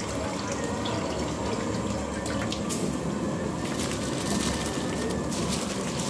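Pot of boiling water with soaked rice being tipped in from a plastic colander: steady bubbling and splashing, with denser splashes from about three and a half to four and a half seconds in as most of the rice slides in.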